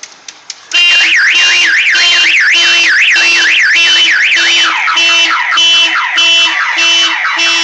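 Car alarm going off, loud: a fast up-and-down wail, then a run of falling chirps, over a steady pulsing beep. It starts about a second in and stops near the end.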